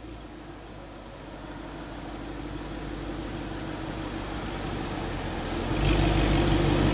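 Audi R8's 4.2-litre V8 idling through an iPE Innotech aftermarket exhaust: a steady low drone that slowly builds, then gets clearly louder at the same pitch about six seconds in.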